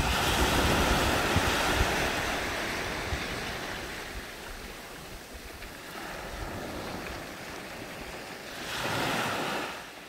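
Small waves breaking on a sandy beach and washing up the shore. A wave breaks right at the start and its wash fades away over several seconds; another wave breaks about nine seconds in.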